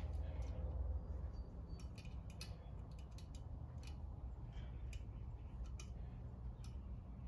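Light metallic clicks and taps, a dozen or so at irregular intervals, from a valve spring compressor and valve keepers being worked on a 6.1 Hemi cylinder head during valve spring installation, over a low steady hum.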